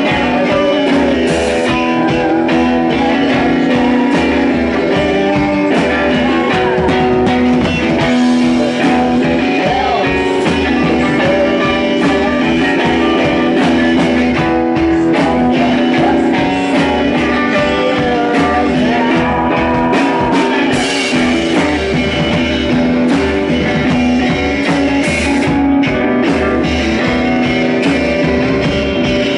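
Rock band playing live: guitars over bass and drums, with a steady beat.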